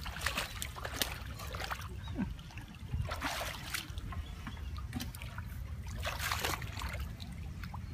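Water splashing and sloshing in a bucket as freshly caught fish are handled and flap about, with short clicks and a longer burst about three seconds in and again about six seconds in.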